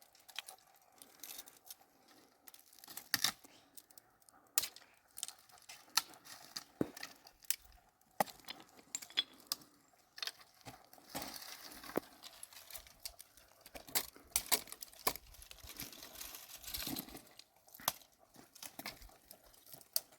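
Irregular sharp clicks and snaps mixed with rustling and crinkling, as things are handled and moved about.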